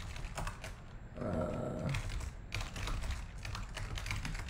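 Typing on a computer keyboard: keys clicking in quick, irregular runs. About a second in, a short wordless vocal sound lasting just under a second sits over the typing.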